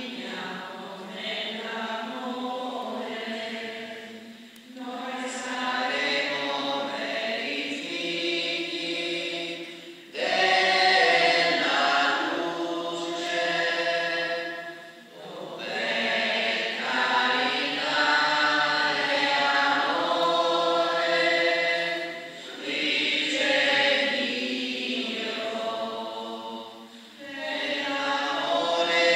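A group of voices singing a communion hymn at Mass, phrase by phrase, with brief pauses every five or six seconds.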